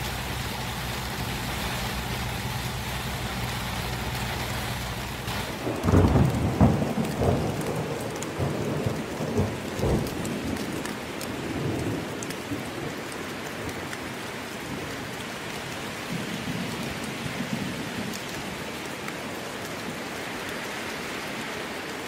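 Steady rain with a loud thunderclap about six seconds in, rumbling on in several rolls for some seconds before the rain alone carries on.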